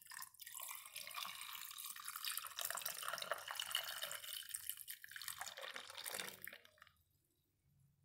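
Cucumber juice poured in a steady stream into a glass of ice cubes, splashing as it fills the glass; the pour trails off and stops about six and a half seconds in.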